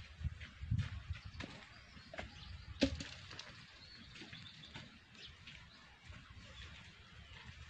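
Faint outdoor ambience: an uneven low rumble on the microphone, scattered light clicks with one sharp click about three seconds in, and faint high bird chirps.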